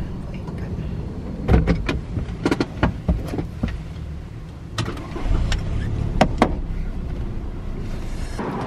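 A car running with a steady low rumble, with a string of sharp clicks and knocks over it.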